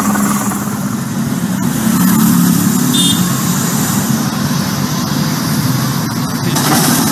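A helicopter's engine and rotor running steadily overhead. After a few seconds this changes to road traffic noise, with a heavy truck's engine running as it hauls an airliner fuselage on a low trailer.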